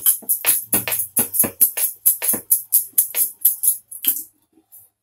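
Wooden rolling pin working a stuffed paratha on a wooden board, quick rhythmic strokes of about four a second with the jingle of bangles on the rolling wrist; the rolling stops a little after four seconds in.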